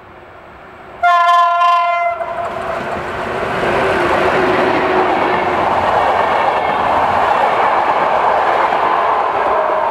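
An electric locomotive's horn sounds once, about a second in, for about a second. Then the PKP Intercity locomotive and its passenger coaches pass close by at speed, with loud, steady wheel-on-rail noise and some clickety-clack.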